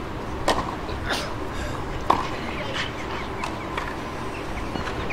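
Background noise of a tennis arena between points, with a few scattered short knocks.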